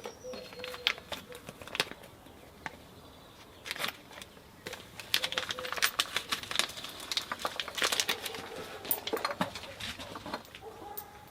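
Irregular light clicks and clinks of small parts and hand tools being handled during engine work, the busiest stretches about four to six seconds in and again around eight to nine seconds.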